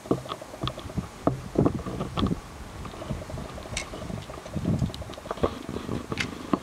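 Wind buffeting the microphone in irregular low rumbling gusts, with a few sharp clicks.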